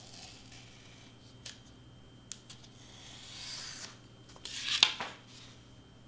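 Craft knife scraping as its blade slices through heavy card, with a few sharp ticks from the blade, a longer cutting stroke past the middle, and the loudest scrape a little before the end.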